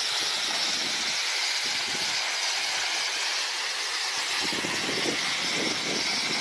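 Steady rushing hiss of a heavy column of falling water pouring down onto rocks, with an uneven low rumble in the second half.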